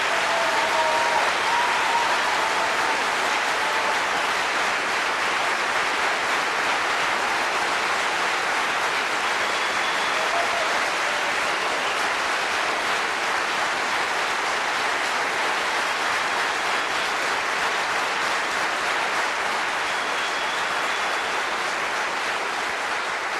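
Large audience applauding steadily, fading away at the very end.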